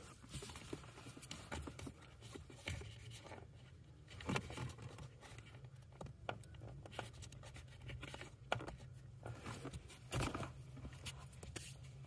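Faint crackling and scraping of electrical tape being pulled off the roll and wound around a wiring harness, with scattered small clicks and rustles over a low steady hum.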